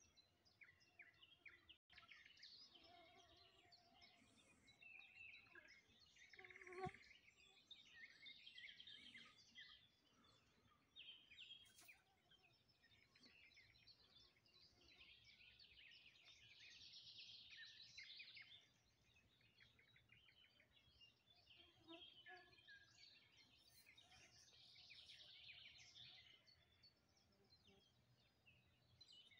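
Faint songbirds chirping and singing, many short calls scattered throughout, over quiet outdoor ambience. One louder short sound stands out about a quarter of the way in.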